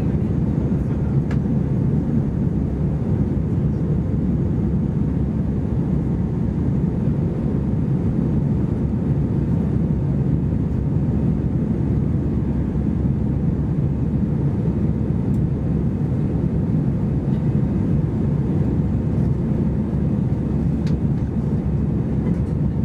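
Steady low drone inside an Airbus A320-214's cabin during the climb: its CFM56 turbofan engines and the airflow over the fuselage, with no change in pitch or level.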